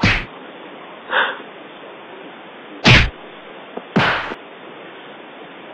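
Dubbed-in punch sound effects: three sharp hits, near the start, about three seconds in and about four seconds in, with a weaker short sound between the first two, over a steady hiss.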